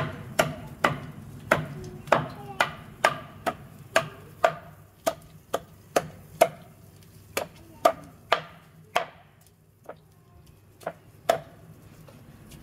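Meat cleaver chopping bone-in barbecued chicken on a wooden chopping board: a run of sharp chops, about two a second, thinning to a few spaced strokes near the end.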